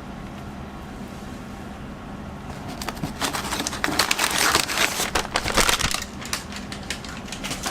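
Packaging crinkling and crackling as it is handled, dense for about three seconds starting roughly three seconds in, then a few scattered crackles.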